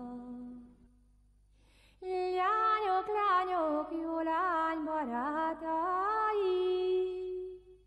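Unaccompanied solo voice chanting a slow, ornamented melody. A held note fades out about a second in, and after a short pause a new, higher phrase begins, its pitch sliding and turning between notes.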